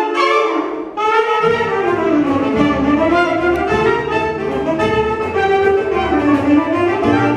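Live band starting a rumba with its instrumental opening, led by brass and saxophone. A bass line comes in about a second and a half in.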